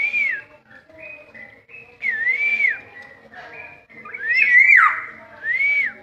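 Black-naped oriole (kepodang) giving loud, fluting whistles, four short phrases about two seconds apart. Each phrase dips and then rises and falls, and the third is longer and louder than the others.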